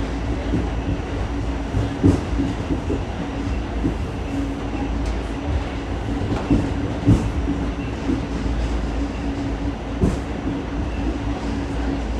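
R46 subway car running at speed, heard from inside the car: a steady low rumble with a steady hum, broken by a few sharp clacks from the wheels on the track.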